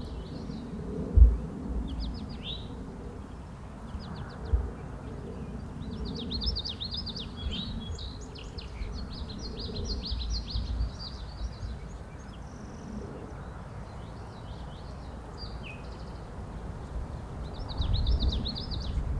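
Small songbirds singing in quick repeated chirping trills over a steady low rumble, with two dull bumps in the first few seconds.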